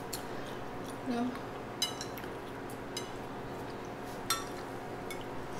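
Chopsticks clicking and tapping against ceramic plates of spaghetti: a few separate clinks spread out over several seconds, one about four seconds in ringing briefly.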